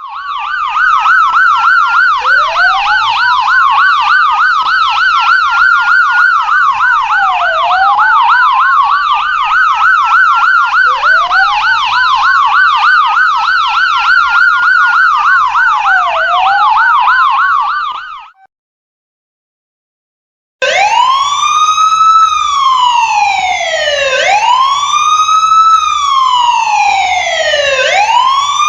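Police-car siren: a fast yelp layered over a slow rising-and-falling wail, which cuts off about eighteen seconds in. After a two-second silence, a wail alone sweeps up and down about every three and a half to four seconds.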